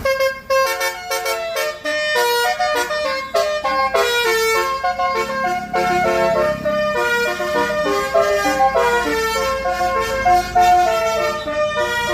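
A bus's multi-trumpet Basuri "telolet" air horn playing a fast melody: several steady horn tones sound together and change pitch every fraction of a second, without a break.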